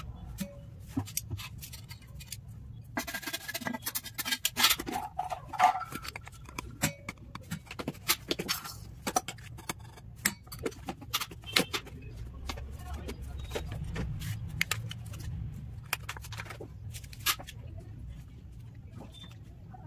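Kitchen handling noise: sharp clinks and taps of utensils and spice containers against a stainless steel bowl as spices are added to the chicken, with a short burst of rustling a few seconds in, over a low steady hum.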